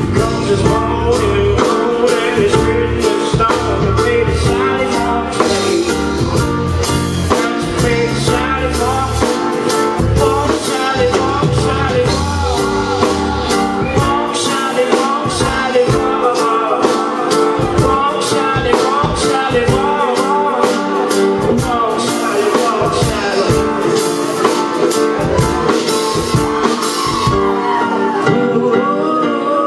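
Live full band playing with a man singing lead. The deep bass drops out about halfway through, leaving the voice, guitars and drums.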